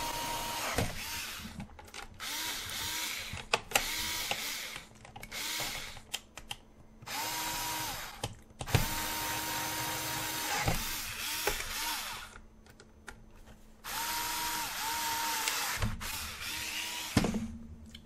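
Worx 4V cordless screwdriver driving the battery-cover screws of a Roomba. It runs in about ten short bursts, each a steady whine that rises as the motor spins up and drops as it stops.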